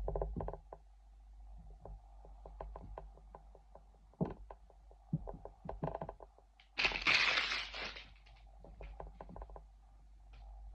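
Toy packaging being handled and opened by hand: a run of small clicks and taps, then a loud crinkling rustle about seven seconds in that lasts about a second.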